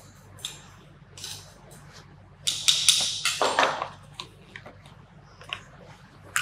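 Metal spatula scraping soil smooth inside a small metal direct shear box, with a loud run of scraping and clatter about two and a half seconds in. Then come a few light knocks as a small wooden tamper is picked up and set on the box.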